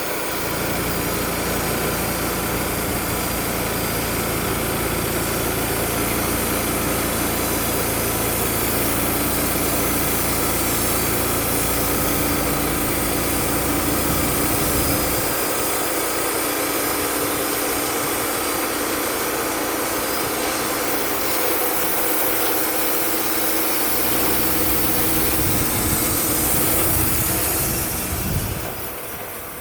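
Wood-Mizer LT35 portable band sawmill running steadily, its engine and band blade going together; the deep part of the sound drops away about halfway through, and the whole sound falls off near the end.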